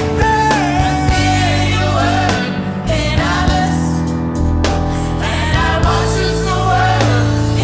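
Gospel worship song: singing with wavering, held melodic lines over steady sustained instrumental backing and bass.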